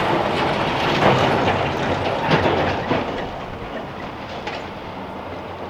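A steady mechanical rumble with irregular clattering and rattling, which grows quieter in the second half.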